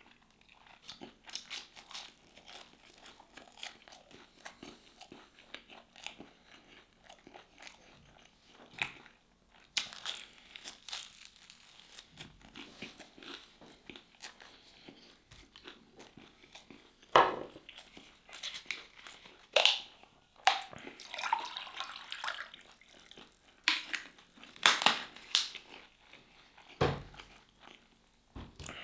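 A person chewing and biting into crispy fried chicken nuggets, a steady run of small crunches and mouth clicks with several louder bites in the second half.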